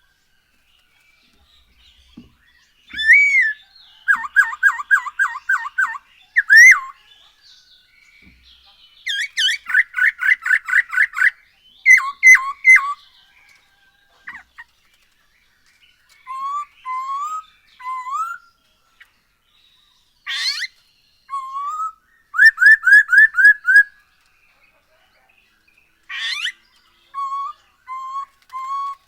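Poksay hongkong (masked laughingthrush) singing loud whistled phrases. Each phrase is a rapid run of repeated notes, about five a second, and the phrases are broken by pauses of a second or two.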